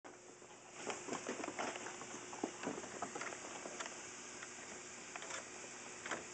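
Irregular scuffling, light clicks and rustling of a nylon pop-up play cube as two Pharaoh Hound puppies wrestle in and around it, their claws scrabbling on the fabric and the wooden deck. The scuffling is busiest in the first few seconds, then comes in scattered bits.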